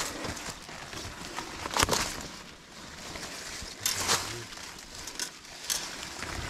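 Footsteps crunching through dry leaf litter and brushing through leafy undergrowth, with louder crackles of leaves and stems about two, four and six seconds in.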